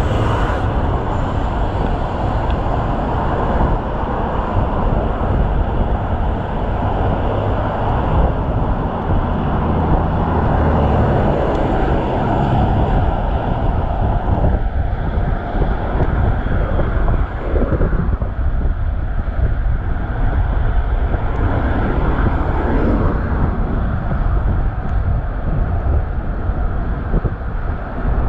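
Wind rushing over a chest-mounted action-camera microphone while riding a bicycle, with road traffic going by. The traffic noise is heavier in the first half and eases off after about halfway.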